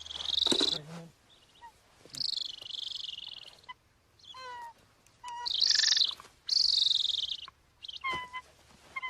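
Golden eagle calling repeatedly, as it is held after being trapped. It gives several drawn-out, high-pitched calls, with shorter, lower calls between them.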